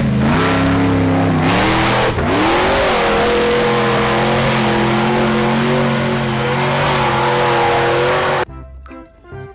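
Motor vehicle engine sound effect: it starts suddenly, revs up about two seconds in, then holds a steady high pitch and cuts off suddenly near the end.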